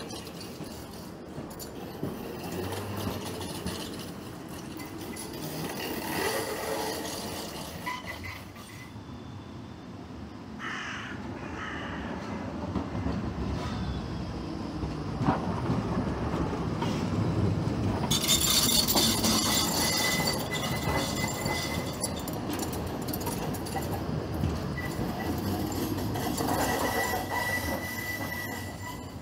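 Tram running on steel rails: rumble and hiss, with the wheels squealing on the rails in a thin high tone that comes and goes. The sound swells to its loudest about two-thirds of the way through.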